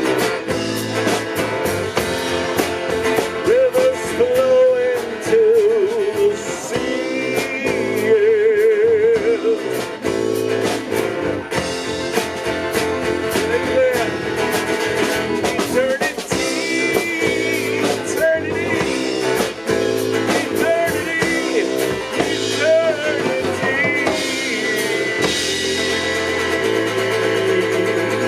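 Live band playing an instrumental passage with guitar and drum kit; a lead line bends and wavers in pitch over the steady backing.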